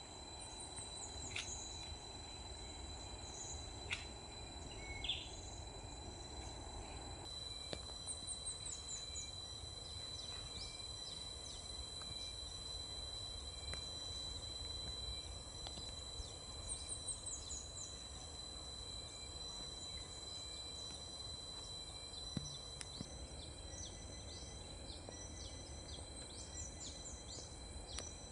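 Field ambience of insects and birds: a steady high-pitched insect drone, with short runs of quick falling bird chirps every several seconds and scattered single chirps.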